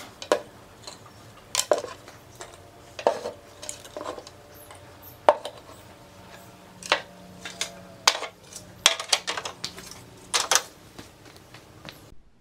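Hard metal objects clinking and knocking together at an irregular pace, several strikes leaving a short metallic ring. The sound is typical of tools or small metal parts being handled on a work surface.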